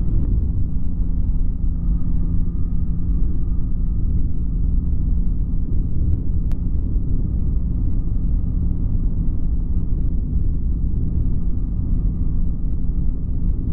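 Flexwing microlight's engine and propeller running steadily in cruise flight: a constant low drone with a steady hum.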